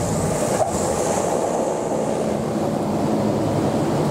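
Steady cabin drone of a Cessna 208B Grand Caravan's Pratt & Whitney PT6A turboprop and propeller, heard from inside the cabin as the aircraft rolls along the runway.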